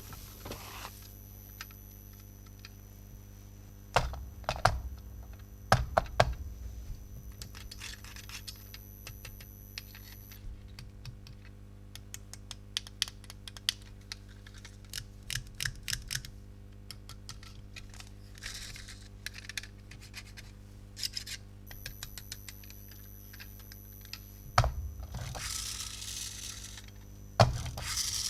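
Plastic toy parts being handled: irregular light clicks and taps, with a few louder knocks and short rustles.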